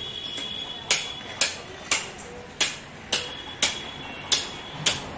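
Cleaver chopping into a hanging goat carcass: about eight sharp strikes, roughly two a second.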